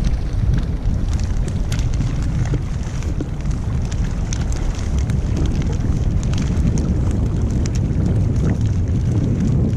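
Wind buffeting the microphone in a steady low rumble, with many small crackling splashes of choppy seawater against the kayak.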